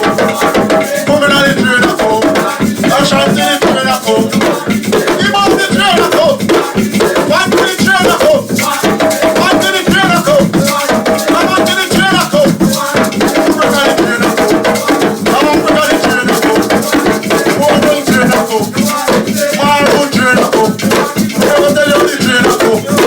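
Hand drums played fast with shakers rattling along and voices singing over the rhythm.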